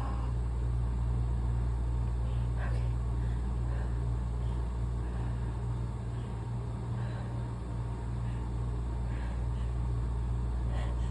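A steady low hum, with a few faint short sounds about two and a half, seven and nine seconds in.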